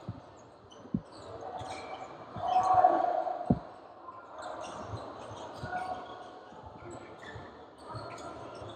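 Basketball being dribbled on a hardwood gym floor, with sharp bounces about a second in and again at three and a half seconds, echoing in a large gym. A loud high squeak, sneakers on the hardwood, comes just before the three-second mark, amid scattered player calls.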